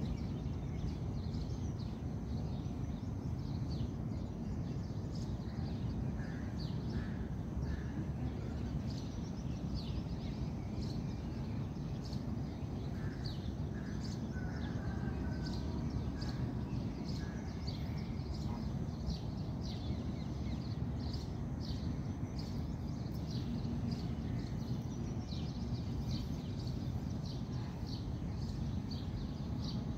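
Outdoor park ambience: birds chirping and calling, many short high chirps, over a steady low rumble.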